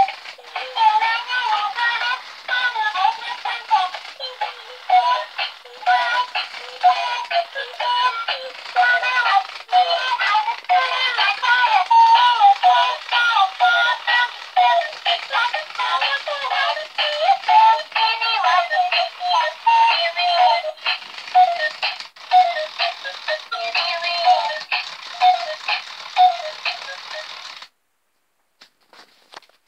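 Battery-powered plush poodle toy singing a pop song through its small built-in speaker, a thin sound with no bass. The song cuts off abruptly near the end.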